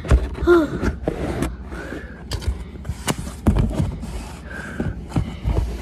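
Phone handling noise as a fallen phone is picked up and propped back up inside a cardboard box: irregular knocks, scrapes and rustling against the cardboard and fabric, with a brief vocal sound about half a second in.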